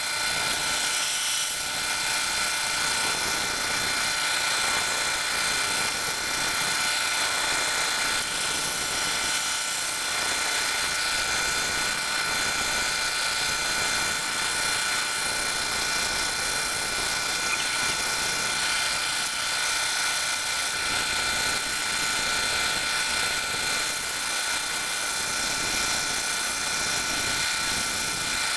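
K40 CO2 laser cutter running as it cuts: a steady whirring hiss with several steady high-pitched whining tones.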